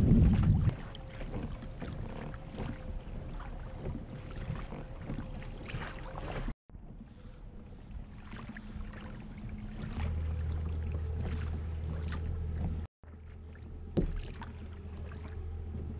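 Ambient sound on a kayak at sea: water lapping at the hull and light wind on the microphone, with faint ticks. It comes in three clips cut together, with two sudden drop-outs. A low steady drone runs for about three seconds in the middle clip, and a single sharp knock comes near the end.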